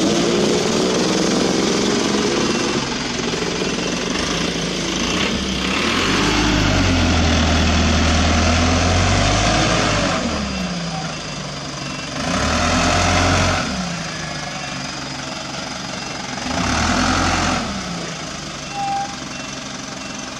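Diesel engine of an Isuzu Elf NMR 71HD dump truck carrying a heaped, heavy load, running with a rough clatter and revving up and down several times as the truck moves. A short high tone sounds near the end.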